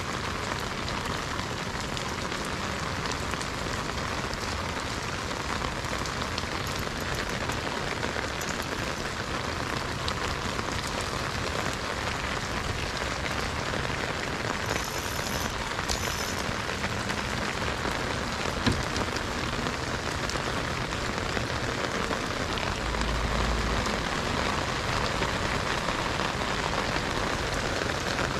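Steady rain falling on the lake surface, an even hiss with no break, with one sharp click about two-thirds of the way through.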